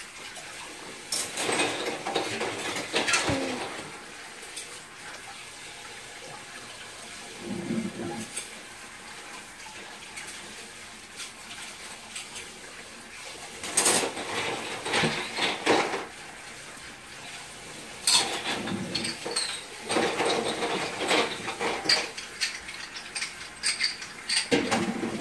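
Dishes and utensils clinking and clattering in several irregular bursts of a few seconds each, over a steady low background hum.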